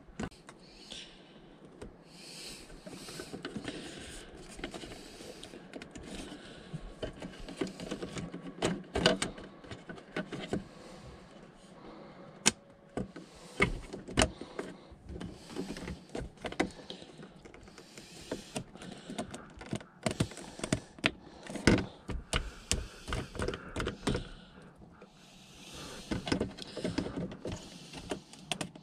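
Plastic interior trim panels being handled and pushed back into a Volvo V70's centre console: irregular rustling with many plastic clicks and knocks, and several sharper snaps as pieces seat.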